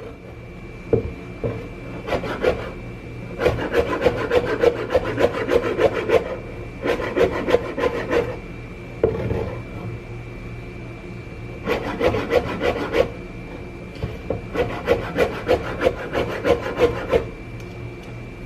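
Chinese cleaver mincing garlic on a cutting board: several runs of rapid, even chops a few seconds long, separated by short pauses and a few single chops.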